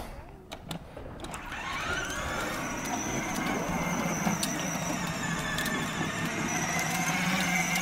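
Children's electric ride-on dirt bike driving along, its electric motor and gears whining steadily; the whine starts about a second and a half in and then holds, drifting slightly in pitch.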